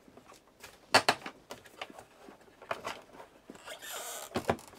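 Handling noise from the hard plastic case of an Amstrad ALT-286 luggable computer: a few sharp clicks and knocks, the loudest about a second in, and a brief rustle near the end.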